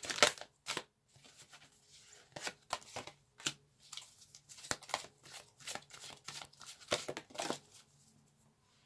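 A deck of large Angels, Gods and Goddesses oracle cards being shuffled by hand: many quick, irregular flicks and slaps of card against card, thinning out near the end.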